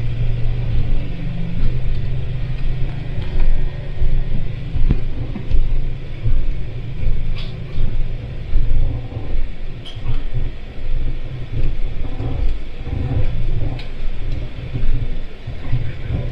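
Low, uneven rumble of a vehicle in motion, with a few faint clicks.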